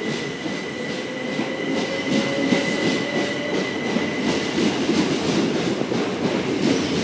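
Southern Class 377 Electrostar electric multiple unit pulling out along the platform: a low rumble with wheels clicking over rail joints, and a motor whine that rises slowly in pitch as it picks up speed. A high steady whine fades away about halfway through.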